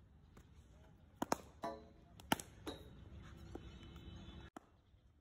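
Cricket ball knocks in a practice net: a quick pair of sharp knocks a little over a second in and a louder crack just over two seconds in, the ball pitching on the concrete strip and being struck by the bat.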